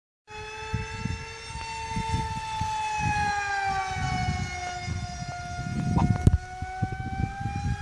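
Multiplex Funjet Ultra RC jet's electric motor and propeller whining at high speed overhead, the pitch sinking slowly and then rising again as it passes. Gusts of wind rumble on the microphone, and there is a sharp click about six seconds in.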